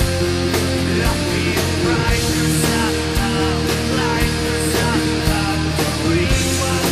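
Electric guitar tuned to D standard playing a melodic rock line over a backing track, with gliding, bent notes above held chords and a steady beat.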